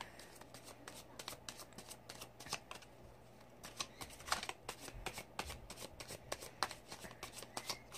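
A deck of Archangel Oracle cards being shuffled by hand: a quiet, continuous run of quick, irregular card flicks and slaps.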